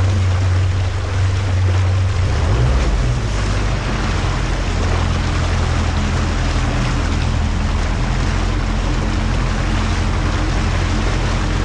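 Mercury Pro XS outboard motor running steadily as the boat moves along, with water rushing past the hull and stern.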